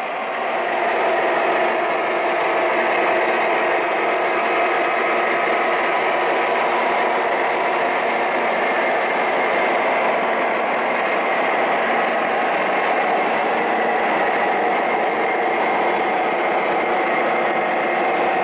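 Electronic diesel engine sounds from four MTH Premier O gauge locomotives running together as a lash-up hauling a long freight train. The sound is loud and steady, and it grows louder about a second in.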